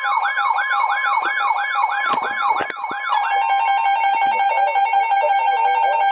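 Weather radio alert alarm: a siren-like tone sweeping down about three times a second, switching just after three seconds to a steady pulsing multi-tone beep. It marks an incoming NOAA Weather Radio warning. A couple of sharp clicks come through around the middle.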